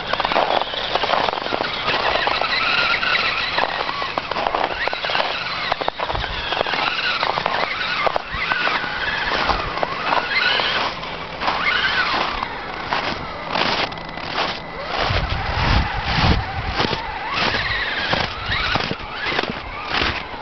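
Axial Wraith RC crawler's electric motor and gear drivetrain whining, the pitch rising and falling as the throttle is worked while it drives over crusted snow. From about halfway in there are regular crunches in the snow, about two a second.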